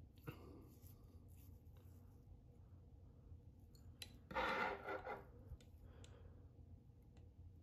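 Faint handling sounds of fly tying at the vise: small clicks and rubbing as fingers work the chenille, with one louder rustling rub of under a second about halfway through.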